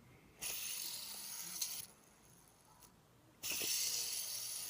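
Faint steady hiss of background noise that cuts out completely for about a second and a half in the middle, then comes back.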